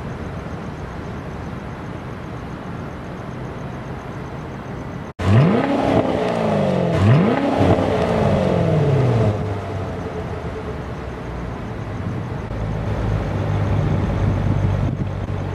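Corvette LT1 6.2-litre V8, swapped into a Lancer Evolution X, accelerating hard: after an abrupt cut about five seconds in, the engine note climbs and drops twice as it pulls through the gears, then settles into a lower steady rumble.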